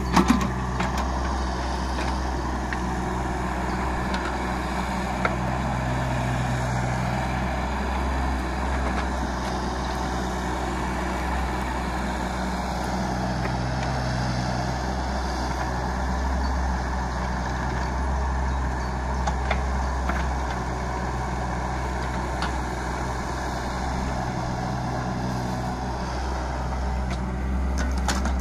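JCB 16C-1 mini excavator's diesel engine running steadily while its hydraulics work the arm and bucket, digging and slewing. The engine note swells briefly three times under load.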